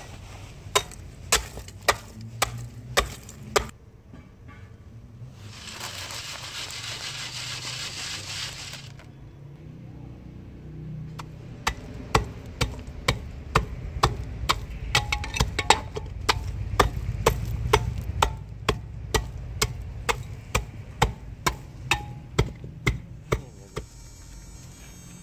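A steel rebar rod pounding lumps of wood charcoal inside a rusty steel can to crush them. It strikes in a steady rhythm, about two to three blows a second, with a pause partway through that holds several seconds of steady noise.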